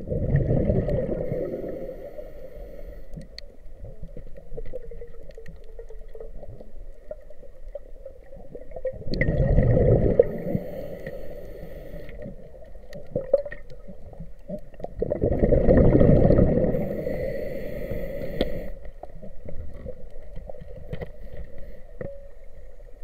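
Scuba diver's exhaled breath bubbling out of the regulator underwater, three long bubbly bursts several seconds apart, with a quieter underwater background between breaths.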